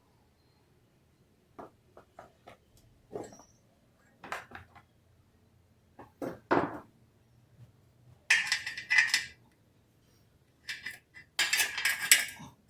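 Light metallic clinks and knocks of small metal parts and tools being handled, then two bursts of hissing, the second one longer.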